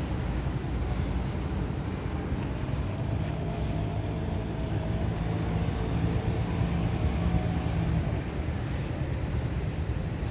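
Road traffic rumbling steadily, with a vehicle's engine drone rising above it for a few seconds in the middle.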